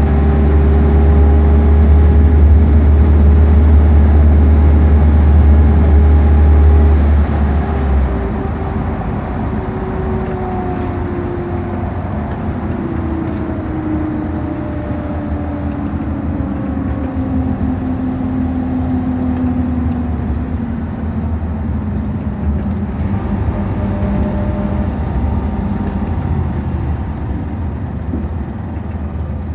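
Coach engine and tyre noise heard from inside the passenger cabin while driving. A heavy low drone drops away about eight seconds in, then the engine's whine slides slowly down in pitch.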